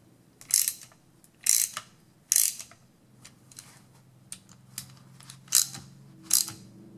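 Ratchet wrench with a 10 mm socket tightening the end-cap bolts of a golf cart starter generator, clicking in short bursts about a second apart as the handle swings back, with lighter clicks in the middle.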